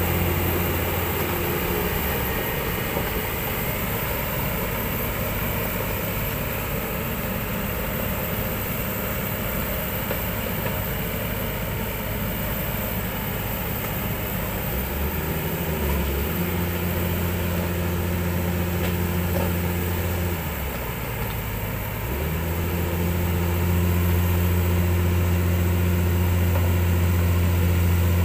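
Kobelco 200 crawler excavator's diesel engine running as the machine tracks along the road, a steady low drone that dips briefly and changes note twice, about halfway through and again a few seconds later.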